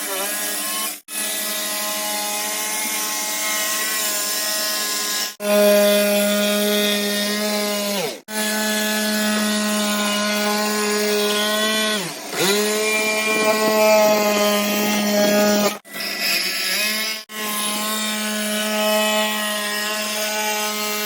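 Electric jigsaw running and cutting through plywood, a steady whine with a rasping saw noise. It breaks off abruptly several times, and its pitch sags briefly twice as the blade is loaded in the cut.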